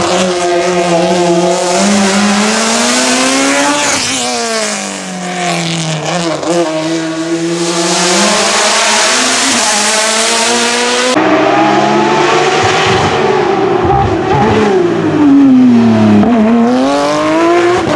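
Race car engines at full throttle. A touring car's engine note climbs and then drops sharply about four seconds in as it shifts up, then rises again and falls away. After a cut, a Porsche 911 GT3 Cup's engine is heard close, its note sinking and then rising again near the end.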